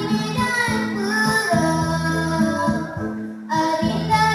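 A young girl singing a song through a microphone over recorded backing music, holding long notes, with a short break in her singing about three seconds in.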